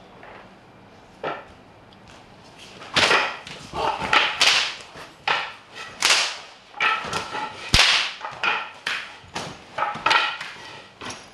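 A rapid series of sharp, whip-like lashes against a concrete floor, about two a second, starting about three seconds in after a couple of lighter knocks.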